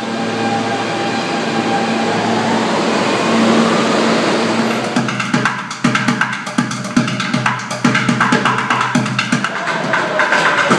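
Subway train running through the station, a steady rumble with a humming tone and a whine that glides in pitch. About five seconds in, fast drumming on plastic buckets starts and carries on over the train noise.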